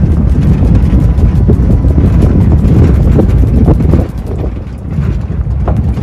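Wind buffeting the microphone: a loud, gusty low rumble that eases briefly about four seconds in.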